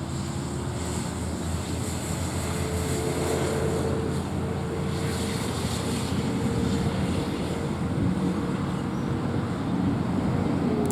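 A motor's engine drone: a steady hum that rises slightly in pitch about two seconds in, then holds.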